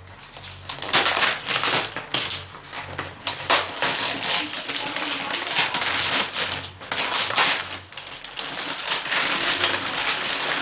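Packaging being torn open and crinkled by hand: a dense run of crackling and small snaps with a couple of short pauses.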